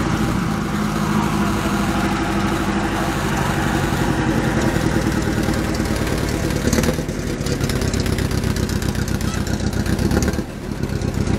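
The engine of a vintage Berliet fire engine running, a steady rapid low throb of firing pulses, with a brief dip about ten seconds in.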